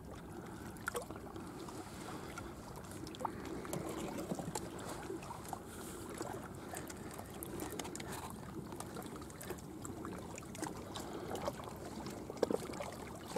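Faint, steady lapping of estuary water at the shore, with scattered light clicks and ticks of tackle handling.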